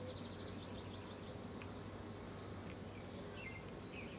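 Quiet low hum with two faint sharp clicks, about a second and a half and close to three seconds in, from a small Allen key against the set screw on the sandblast gun's hopper as it is turned.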